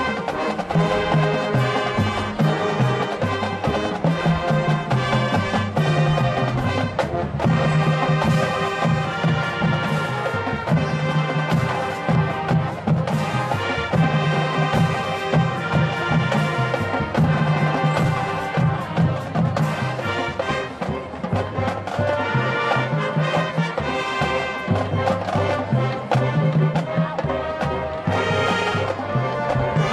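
Marching band playing: a brass-led tune of trumpets and sousaphones over a drumline, loud and continuous.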